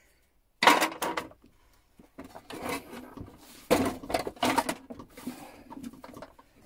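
Old hand tools clinking and knocking against each other and the steel trays of a metal toolbox as they are moved about. The clatter comes in several short bursts, the loudest about four seconds in.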